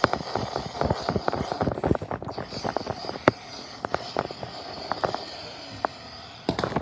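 A fabric cover being shaken and rustled, with plastic LEGO pieces knocking and clattering: the knocks come thick and fast for about two seconds, then grow sparser.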